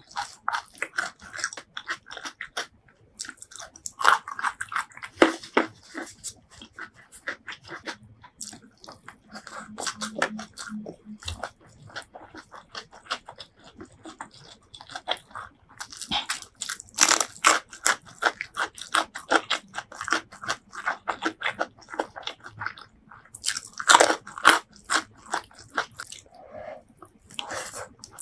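Close-miked mouth sounds of eating: crisp crunching bites of raw vegetables mixed with wet chewing of rice and sambal, coming in clusters, heaviest a little past halfway and again near the end.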